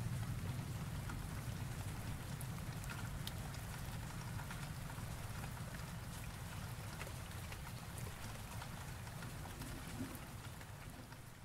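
Steady rain with scattered drop ticks over a low rumble of thunder, slowly growing quieter toward the end.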